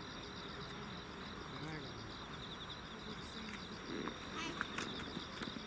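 Night insects trilling steadily in a high, fast-pulsing chorus, with faint chatter of people and a few soft clicks about four to five seconds in.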